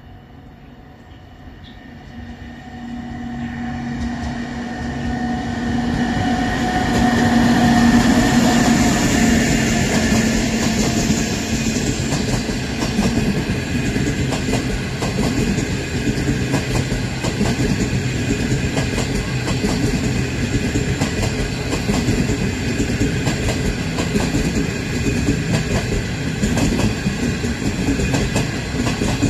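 A CR200J Fuxing passenger train approaches and passes close by. Its power car's hum builds to its loudest about eight seconds in, then the coaches roll past with a steady rumble and a rapid clickety-clack of wheels over the rail joints.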